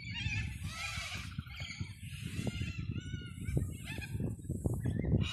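Several birds calling and chattering over one another in repeated wavering cries, over a steady low rumble and the footsteps of someone walking on a dirt track.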